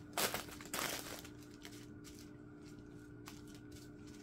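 Small plastic bags of diamond-painting drills rustling as they are shuffled across a table, in two short bursts within the first second, over a faint steady hum.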